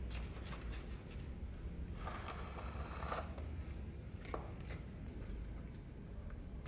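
Handling noise from the old leather-covered wooden dagger scabbard being moved and rubbed on a wooden workbench: a scraping rustle about two seconds in and a few light taps, over a low steady hum.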